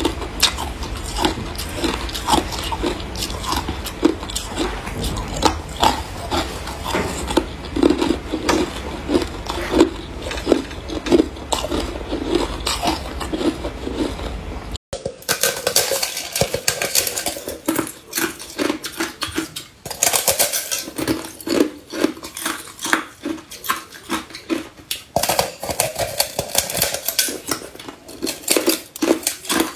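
Hard ice being bitten and crunched, a dense run of sharp cracks and crunches, with a low hum under the first half. About halfway through it cuts to another recording of ice cracking and crunching, brighter and sharper.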